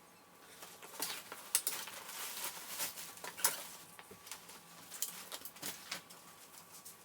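Irregular rustling and crinkling of packaging being handled while unboxing, with many sharp clicks and taps; it starts about a second in and dies down near the end.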